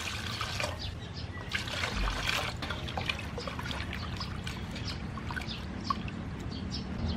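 Water poured from a plastic jug into a large aluminium basin of raw octopus, then splashing and sloshing as hands rub and wash the octopus in the water.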